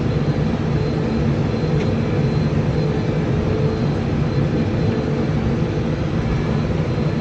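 Tractor and TwinPak double baler running steadily while baling hay, a continuous even hum with no knocks or breaks. The baler is running smoothly; the operator says it "purrs like a kitten".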